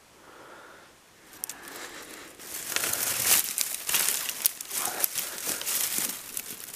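Dry twigs and leaf litter crackling and rustling, with many sharp snaps. It starts faintly about a second in and turns loud and continuous from about two and a half seconds in, as the undergrowth around the dead stag is disturbed.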